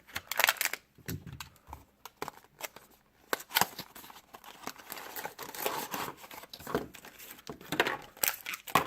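Packaging being torn open and crinkled by hand, an irregular run of rustling and ripping.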